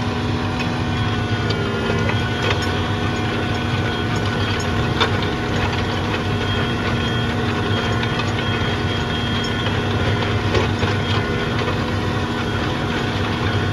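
Large farm tractor's diesel engine running steadily under load, with scattered clicks and metallic rattles.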